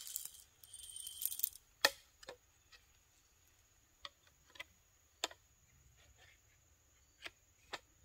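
Wooden forestock and metal parts of a Daisy BB rifle being handled and fitted back together: a brief scraping rustle, then a sharp knock about two seconds in and several lighter clicks and taps.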